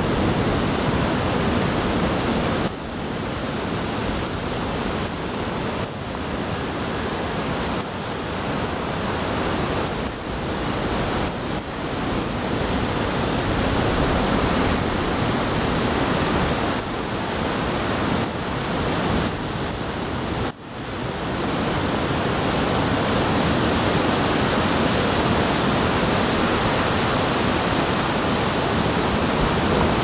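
Ocean surf from a typhoon swell breaking and washing up the beach, a steady rush of noise with a sharp brief dip about twenty seconds in.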